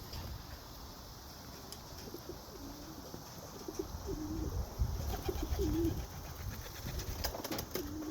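Homing pigeon cooing in a run of low, wavering notes that begins about two seconds in. A few sharp clicks come near the end.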